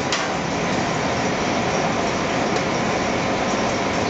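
Steady rushing noise of a commercial kitchen's ventilation hood and lit gas burners, with a light click or two of metal tongs.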